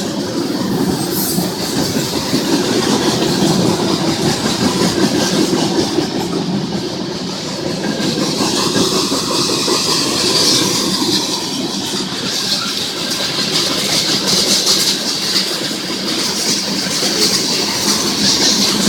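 Freight train hopper cars rolling past: a steady clatter of wheels on the rails, getting brighter and hissier about halfway through.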